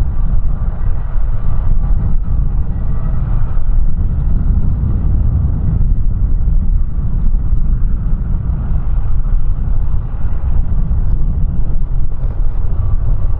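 Strong wind buffeting the microphone: a loud, low rumble that flutters rapidly up and down in level.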